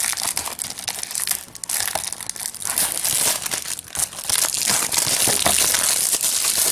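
Plastic shrink wrap being torn and peeled off a Blu-ray case, crinkling and crackling continuously, with brief lulls about a second and a half and four seconds in.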